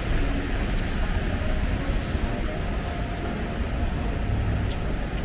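Steady city street noise, mainly the low rumble of traffic.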